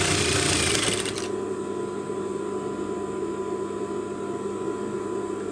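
A sewing machine stitching a seam for about the first second, then stopping. A steady mechanical hum carries on after it stops.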